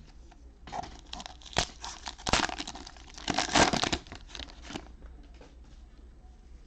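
A plastic cello pack of trading cards being torn open, the cellophane wrapper crinkling and crackling for about four seconds, loudest past the middle, then the cards handled quietly.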